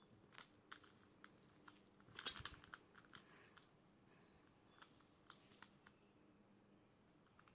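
Faint, scattered plastic clicks from a Rubik's Cube being handled, with a short cluster of clicks about two seconds in.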